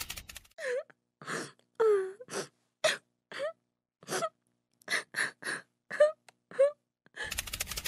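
Cartoon crying sound effect: a string of about a dozen short sobs and gasps, several with a falling, whimpering pitch, separated by brief silences.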